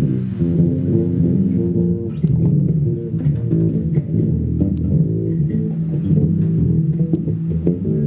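Bass guitar music: a continuous line of low plucked notes.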